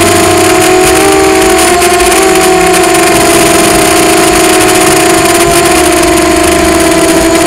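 QAV250 quadcopter's brushless motors and propellers whining steadily at a nearly constant pitch, heard close up through the onboard Mobius camera, with wind hiss over the microphone.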